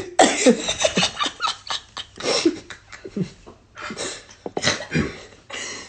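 A man and a woman laughing hard in short breathy bursts, with snorts in the man's laughter.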